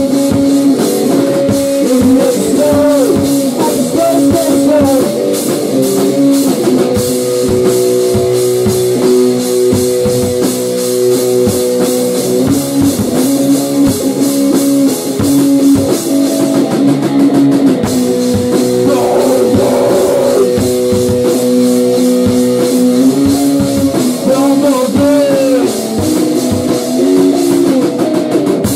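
Loud rock music: a guitar holding sustained, shifting notes over a driving drum kit.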